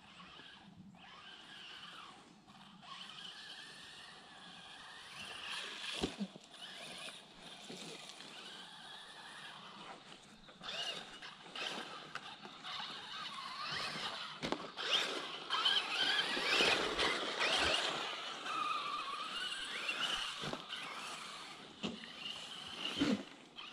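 Traxxas Slash 4x4 RC truck's electric motor whining, rising and falling in pitch as the throttle is worked, along with tyre noise on dirt. A few sharp knocks come through, loudest where the whine is busiest about two-thirds of the way in.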